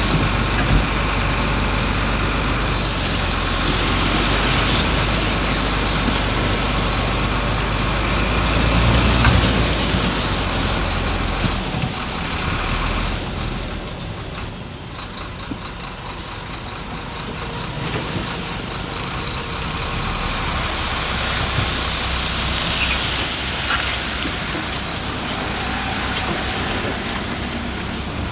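Heavy diesel earthmoving machinery running at a work site, a continuous low engine rumble with a faint high steady tone above it. The rumble is heaviest in the first half, eases off around the middle, then builds again.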